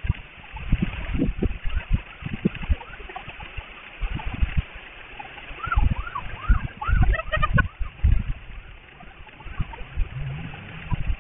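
Rain and wind buffeting a security camera's microphone in a downpour: irregular low rumbling thumps over a steady hiss. A little past the middle comes a short run of high rising-and-falling calls, about half a dozen in two seconds.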